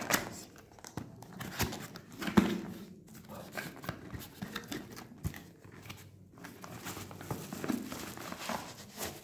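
Cardboard speaker packaging and bubble wrap being handled: a string of irregular rustles, crinkles and light knocks as the box is opened and the wrapped speakers are pulled out, loudest right at the start and about two and a half seconds in.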